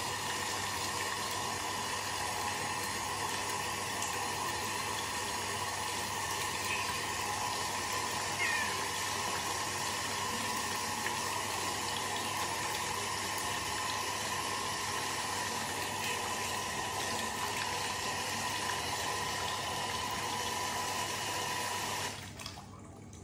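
Water running steadily from a lever-handle bathroom tap into a sink basin, splashing onto a wet cloth lying in it. The flow cuts off suddenly about 22 seconds in as the tap is shut.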